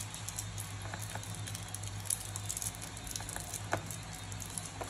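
Crinkling and rustling of a plastic candy wrapper handled in the fingers, small crackly ticks all through, over a steady low hum.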